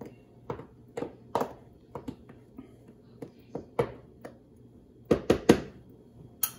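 Hands mixing seasoned flour in a plastic tub, making a run of soft taps and thumps about two a second. Three louder knocks come about five seconds in, and a sharp click at the very end.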